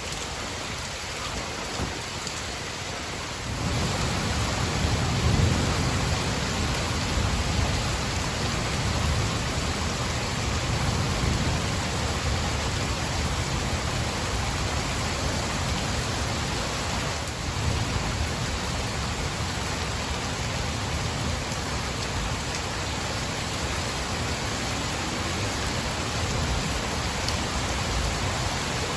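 Steady heavy rain in a thunderstorm, with low thunder rumbling beneath it; the rain grows louder and a rumble swells about four seconds in.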